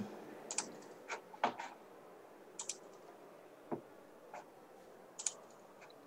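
Quiet, irregular computer clicks from a mouse and keyboard, about a dozen sharp clicks with some in quick pairs, as a screen share is started on a computer.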